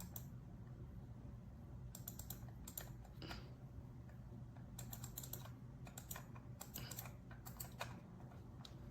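Faint typing on a computer keyboard in short bursts of a few keystrokes with pauses between, over a steady low hum.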